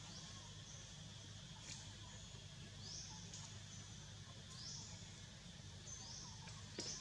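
A bird repeating a high call that rises and then holds level, about every one and a half seconds, faint over a steady low hum. A sharp click near the end.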